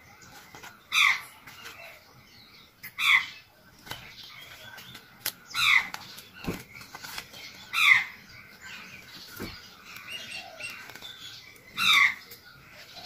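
Glossy pages of a thick softcover guide book being turned by hand, a short swish about every two seconds, five in all.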